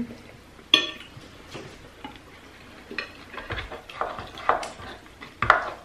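Spoons and a serving ladle clinking and scraping against dishes and a glass soup bowl: one sharp ringing clink just under a second in, then a run of knocks and scrapes from about three seconds in as the ladle works in the bowl of beef-shank soup.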